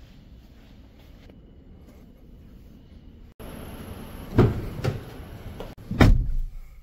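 Doors being shut: three heavy thumps in the second half, the loudest about six seconds in, after a few seconds of low steady background.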